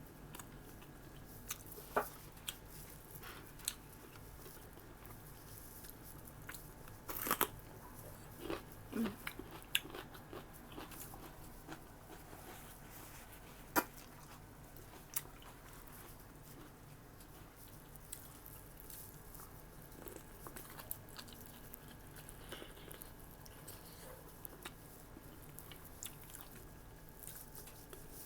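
Close-up eating sounds: a person chewing and biting, with scattered sharp mouth clicks and crunches, thickest for a few seconds about a quarter of the way through.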